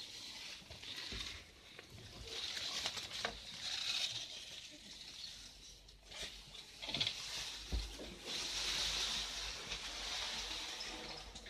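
Ivy leaves and twigs rustling and scraping as the overgrown door of a red telephone box is pushed open through them, in several long swells of rustle with scattered clicks and a dull thump a little past the middle.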